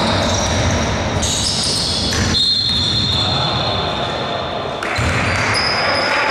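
Basketball game sounds in a gym hall: the ball bouncing and players' shoes on the hardwood court, over a steady noisy background with a reverberant hall sound.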